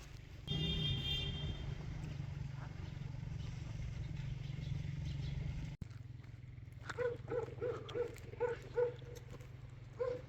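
Street ambience with a steady low rumble of traffic. There is a brief pitched call about half a second in, and a run of evenly spaced ringing knocks, about three a second, over the last few seconds.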